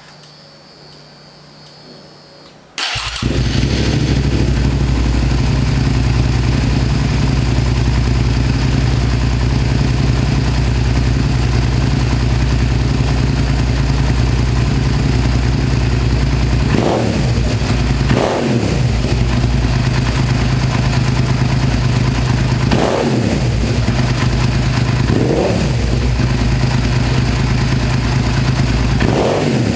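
A 2005 Suzuki SV650S's V-twin engine starting about three seconds in, then idling steadily, with five quick throttle blips that rise and fall in pitch in the second half.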